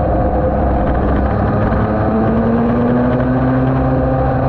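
Yamaha TD1B's 250 cc two-stroke twin racing engine running hard under way, heard from a camera mounted on the bike. Its pitch rises a little about two seconds in, then holds steady.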